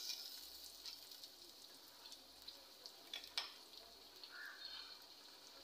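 Faint sizzling of chickpeas and fried onions in a hot pot, fading over the first half second as lemon juice is squeezed in by hand. A light crackle carries on, with two small clicks about three seconds in.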